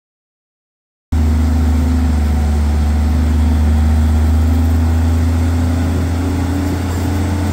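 Boat travel lift's engine running at a steady idle, a low even hum that cuts in abruptly about a second in.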